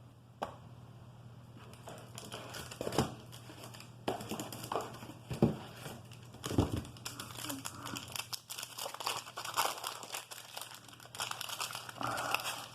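Wax paper wrapper of a 1988 Topps baseball card pack crinkling and tearing as the pack is ripped open and handled, with irregular crackles and a few sharper snaps.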